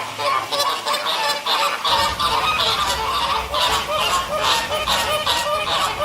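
A flock of flamingos honking in many rapid, overlapping calls, with a low rumble coming in about two seconds in.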